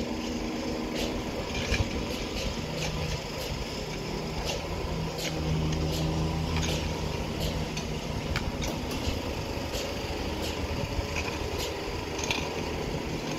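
Heavy construction machinery engine running steadily, its hum growing stronger for a few seconds mid-way, with scattered clinks and scrapes of shovels on gravel and sand.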